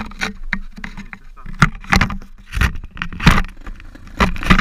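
Pit bike and its gear rattling and knocking over rough ground: a dozen or so sharp irregular knocks and scrapes over a low steady hum.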